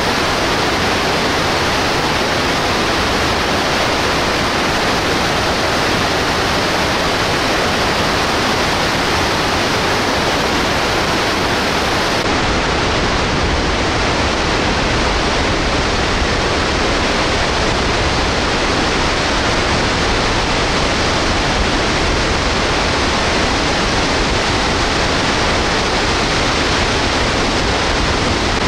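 Snoqualmie Falls in flood, a huge volume of water falling and crashing into the plunge pool as a steady, dense rush of water noise. About twelve seconds in, the sound turns deeper, with more low rumble and less hiss.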